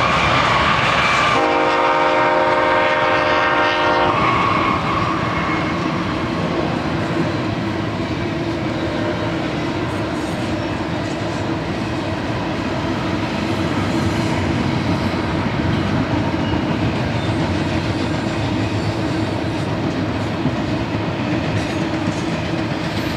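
BNSF double-stack intermodal train passing close by: a locomotive horn chord sounds for about three seconds near the start, then the steady running noise of the container well cars' wheels on the rails carries on.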